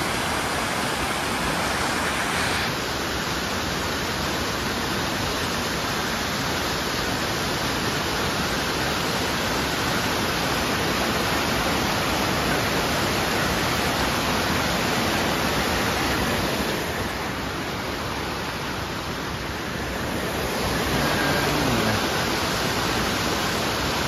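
Waterfall and mountain stream cascading over rocks, a steady rush of falling water that softens slightly for a few seconds past the middle.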